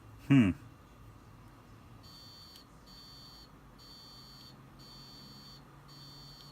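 A continuity tester beeps five times, each beep about half a second long, as the removed key switch is pressed and released: the switch now closes normally. Near the start there is a brief loud sound falling in pitch.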